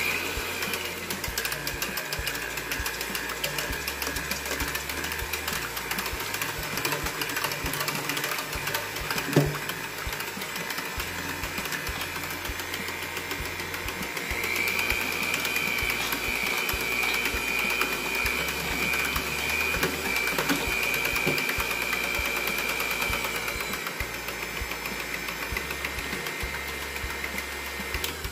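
Electric hand mixer running steadily, its beaters whisking eggs, milk and melted butter in a stainless steel bowl. Its whine rises in pitch about halfway through, and there is a single knock about nine seconds in.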